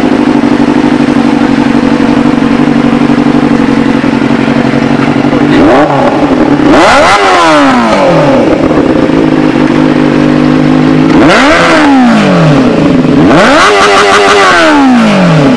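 Benelli TNT 600i's inline-four engine running loud through an aftermarket SC Project CRT exhaust with stainless steel bend pipes: a steady idle, then four quick throttle blips in the second half, each rising in pitch and falling back to idle.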